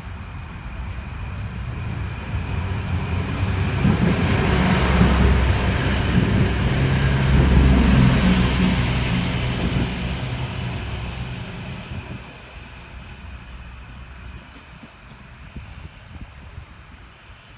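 A diesel multiple-unit passenger train passing along the track, growing louder over the first few seconds, loudest in the middle with a heavy low rumble, then fading away over the second half.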